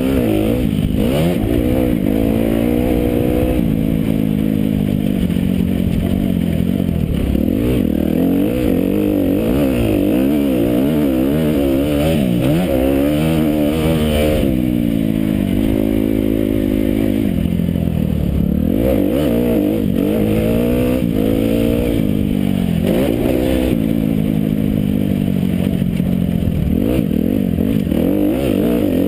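Motocross bike engine heard from a camera mounted on the bike, revving hard and easing off over and over as the rider goes through the gears around the track, its pitch climbing and dropping every second or two.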